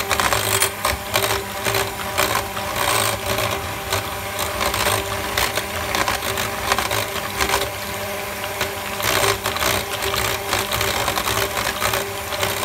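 Electric hand mixer running steadily, its twin wire beaters whisking a runny egg-and-yogurt batter in a glass bowl: a motor hum with frequent clicks and rattles.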